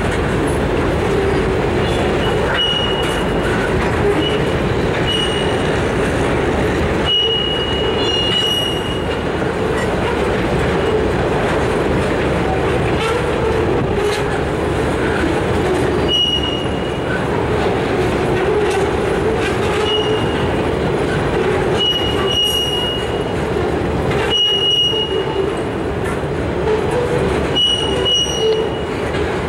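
Flatcars of a rail train, loaded with strings of welded rail, rolling past with a steady rumble and rattle. Brief high-pitched wheel squeals cut in every few seconds.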